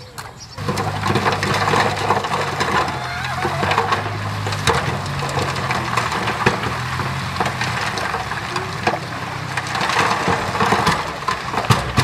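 Bulldozer's diesel engine running under load while pushing dirt, with many sharp cracks and knocks over the engine note. It starts suddenly about half a second in.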